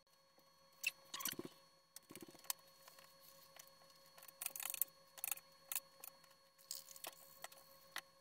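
Scattered light clicks and knocks with a few short bursts of rustling as banana leaves are handled and laid on a cutting board, over a faint steady hum.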